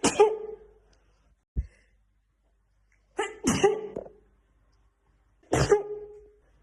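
A woman sneezing three times in a sneezing fit, each sneeze a loud voiced burst with a hissing blast, about two and a half seconds apart. A short, low thump comes between the first two sneezes.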